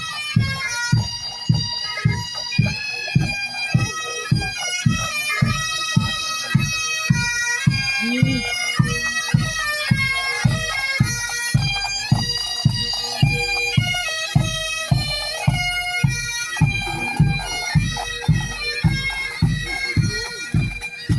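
Scottish bagpipes playing a marching tune over their steady drone, with a regular low beat about twice a second underneath.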